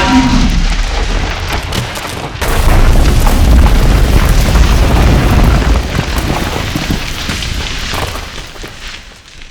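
Falling debris: a deep rumble with clattering, crumbling impacts. A fresh heavy crash comes about two and a half seconds in, then the rumble and clatter slowly die away.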